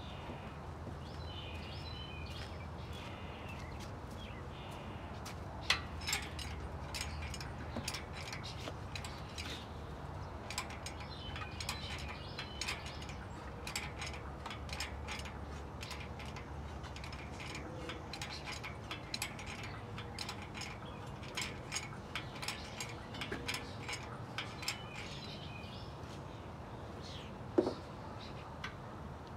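Scattered light metallic clicks and clinks of tools and parts being worked in a car's engine bay, with one louder metal clank near the end. Birds chirp now and then.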